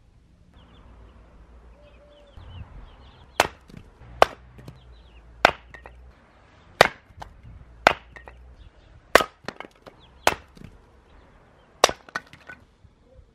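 Forged hatchet splitting small pieces of wood on a log chopping block: about eight sharp chops, roughly one a second, starting a few seconds in, with a few smaller knocks between them.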